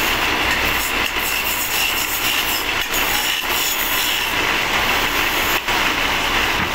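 Wood lathe running while a hand-held chisel cuts into a spinning wooden rolling pin: a steady, rough scraping of wood being turned.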